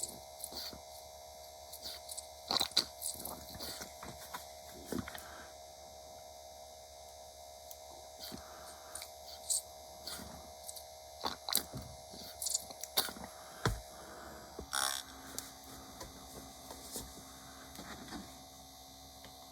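Small electric paint stirrer running with a steady hum, stirring a hobby paint bottle, with scattered clicks and knocks from handling the bottle and tools. The hum changes pitch about fifteen seconds in.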